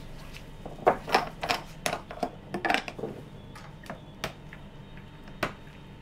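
Plastic microcentrifuge tubes clicking and knocking against a plastic tube rack as they are handled: a quick run of sharp clicks in the first half, then a few single clicks. A steady low room hum runs underneath.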